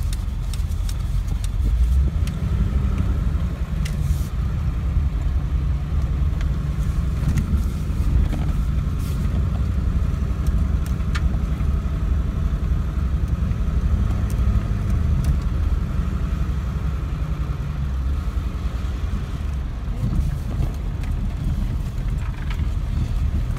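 2002 Ford F-350's 7.3-litre Power Stroke V8 turbo-diesel running, a steady low rumble heard from inside the cab.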